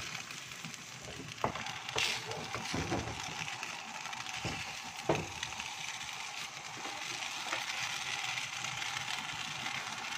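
Milk mixture simmering in a nonstick frying pan with a steady hiss, stirred and scraped by a silicone spatula, with a few light knocks of the spatula against the pan.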